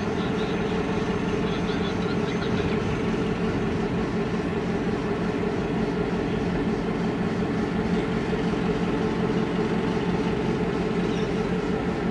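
B-class diesel locomotive's EMD 16-567C two-stroke V16 engine running steadily at low power, a constant low pitched drone.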